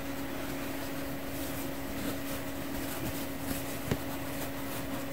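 Steady mechanical hum holding one clear pitch, with faint rustles and small ticks of cotton fabric being worked between the fingers; a sharper tick about four seconds in.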